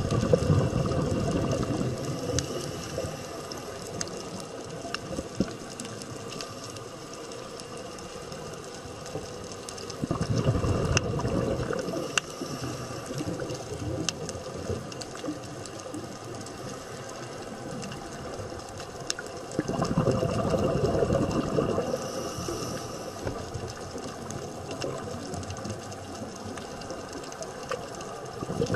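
Underwater recording of a scuba diver's exhaled bubbles rushing and gurgling out of the regulator in three bursts of about two seconds, roughly every ten seconds, with faint scattered clicks between them.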